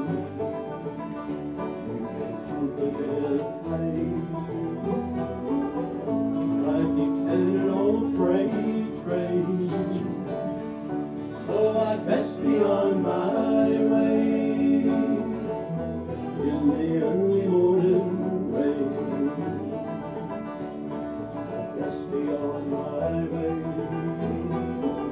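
Live bluegrass band playing an instrumental break on acoustic guitars and banjo, with a steady strummed rhythm under a plucked lead line.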